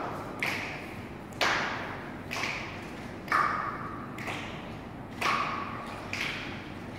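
Slow, steady percussive strikes, about one a second, each ringing out briefly, with the ring alternating between a higher and a lower pitch.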